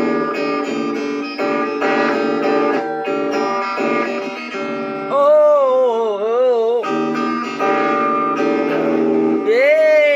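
Guitar music with plucked notes. A sliding, wavering melody line comes in over it twice, about five seconds in and near the end.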